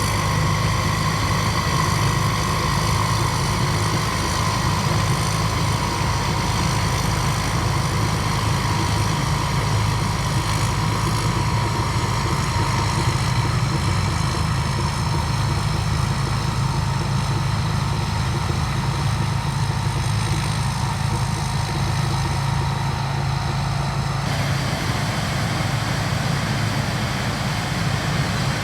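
Rice combine harvester running steadily as it works the field: a low engine hum under a high whine that sinks slightly in pitch, the sound changing abruptly near the end.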